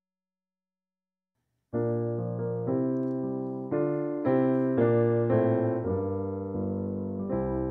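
Silence, then a keyboard starts about two seconds in, playing a slow run of sustained chords, a fresh chord struck roughly every half second to a second, each fading before the next.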